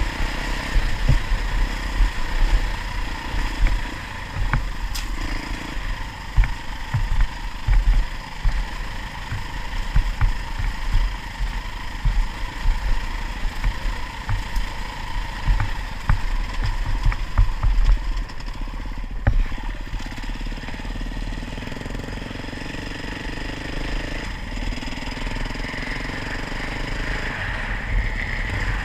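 Off-road motorcycle engine running steadily, with frequent low thumps and knocks over the first two-thirds. It settles into a more even sound for the rest.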